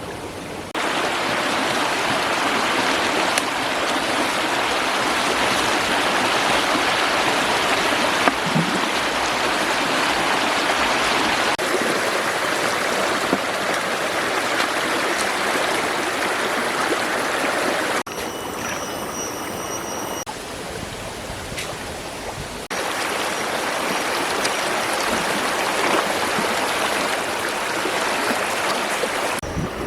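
Steady rush of running water, broken by a few abrupt cuts where the level jumps.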